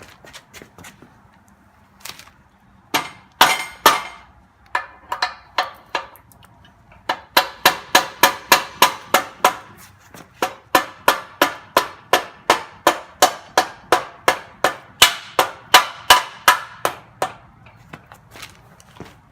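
Mallet hammering a tight pin into a backhoe quick-on bucket connector: a few separate strikes at first, then a steady run of about three blows a second that stops about two seconds before the end. The pin is a tight fit and has to be driven in.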